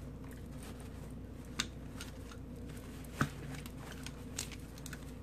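Hands untying and opening a satin drawstring pouch: scattered soft fabric rustles and small sharp clicks, the sharpest about three seconds in, over a steady background hum.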